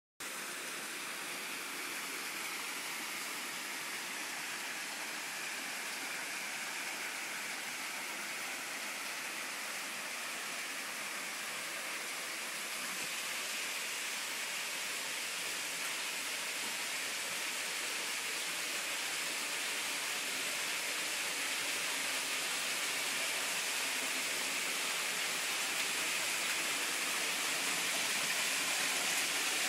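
Small waterfall and rocky stream rushing steadily, growing gradually louder.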